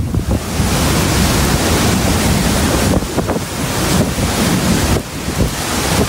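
Hurricane-force wind blowing ferociously, a loud steady rush with a deep rumble as gusts buffet the microphone, easing briefly about five seconds in.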